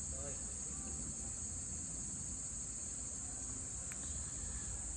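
Steady, high-pitched insect chorus shrilling without a break, over a faint low rumble.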